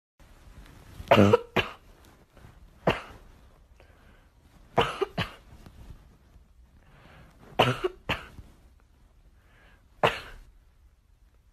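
Boston terrier coughing in about eight short, sharp bursts, several in quick pairs, with quiet gaps of a second or two between them.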